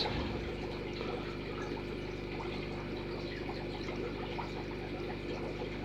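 Aquarium water bubbling and trickling from air-driven sponge filters, over a steady low hum.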